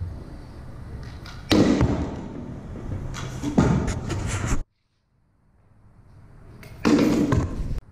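Stunt scooter riding on concrete: wheels rolling, with three loud landing thuds, one about a second and a half in, one past the middle and one near the end. The sound cuts out abruptly for a moment after the second.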